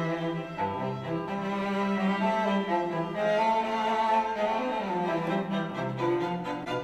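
Classical music played back through a pair of Yamaha HS5 studio monitors and recorded by a microphone in the room: slow, held notes that move between low and middle pitches.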